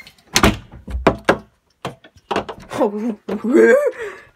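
A door thumping and knocking a few times in the first second and a half, the loudest about half a second in. Then a voice calls out without clear words for a couple of seconds.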